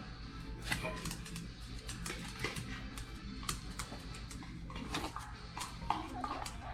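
Background music with steady sustained low notes, under scattered light clicks and taps.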